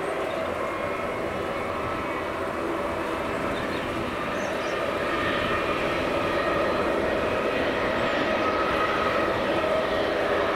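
Airliner engines running with a steady whine of a few tones, slowly growing louder.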